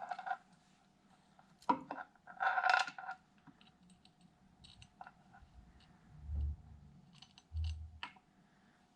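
Metal engine parts clinking and scraping as the camshafts and timing chain are fitted into a Kawasaki Mojave 250 cylinder head. The sharp ringing clinks come in the first three seconds, and two dull low thumps follow later.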